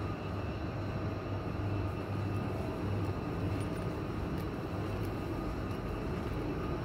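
Steady low rumbling hum of an underground metro station platform, with no train arriving.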